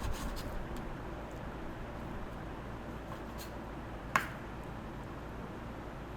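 Quiet kitchen handling sounds: a few light clicks over a steady low hum, with one sharp clink about four seconds in.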